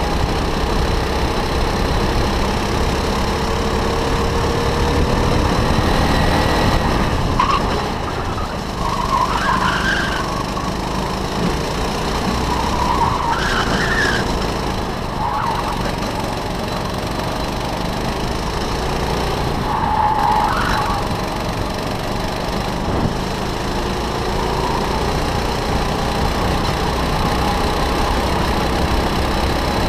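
Go-kart engine running hard, its pitch slowly climbing for the first several seconds along a straight and then easing and rising through a run of corners. Short high squeals, likely the tyres sliding, come in the turns about a third of the way in, in the middle and again a little past two-thirds.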